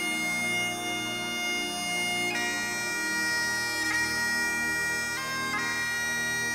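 Great Highland bagpipe playing a slow melody over its steady drones, the chanter holding long notes with quick grace-note flicks at each change of note.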